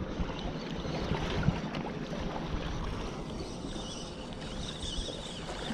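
Soft continuous whir of a spinning fishing reel being cranked on a steady retrieve, over sea water lapping against the rocks and wind on the microphone.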